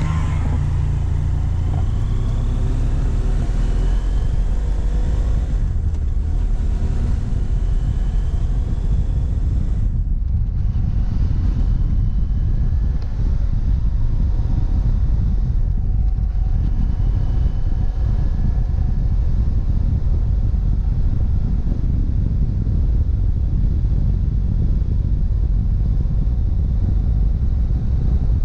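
BMW F700GS motorcycle's parallel-twin engine pulling away and accelerating, its note rising in pitch over the first several seconds, then running steadily at cruising speed with a low rumble of wind and road noise on the camera microphone.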